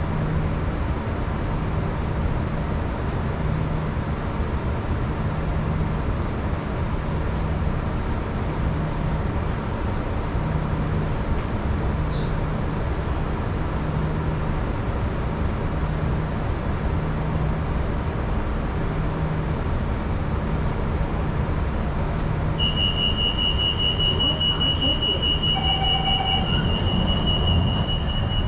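Steady hum inside an MRT train car standing at a platform with its doors open, with a low tone pulsing slowly on and off. About 23 seconds in, a continuous high-pitched door-closing warning tone starts and keeps sounding as the doors begin to slide shut near the end.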